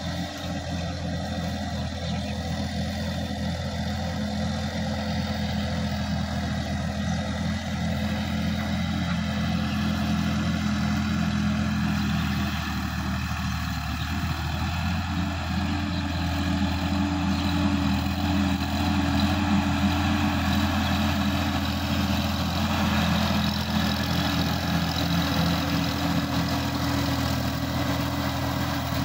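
Sonalika DI-50 RX tractor's diesel engine running steadily under load while pulling a rotary tiller through wet mud, growing gradually louder as it comes closer.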